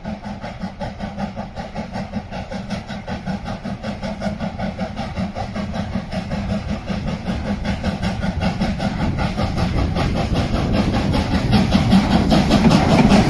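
Ex-South Australian Railways steam locomotive No. 621 working uphill with a passenger train: rapid, even exhaust beats with steam hiss, growing steadily louder as it approaches and passes close by.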